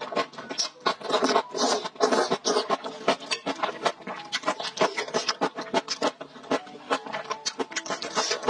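Close-miked mouth sounds of someone eating kimchi and black-bean-sauce noodles: wet chewing and smacking, a quick irregular run of sharp clicks several times a second.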